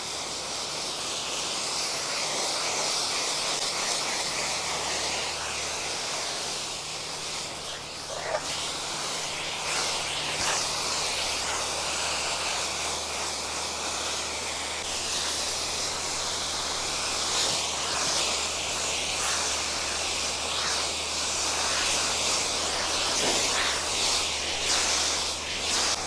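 Steady hiss of water spraying from a fire hose, over the steady low drone of an engine, with a few faint clicks.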